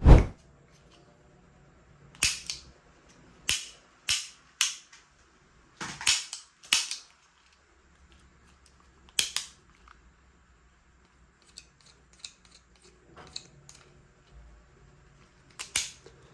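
Toy spring gun being fired: a series of sharp snaps at irregular intervals, with softer clicks of the gun being handled and cocked in between.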